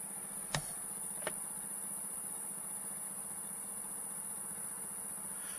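Steady high-pitched insect chorus with a faint low hum beneath, and two light clicks about half a second and a second and a quarter in.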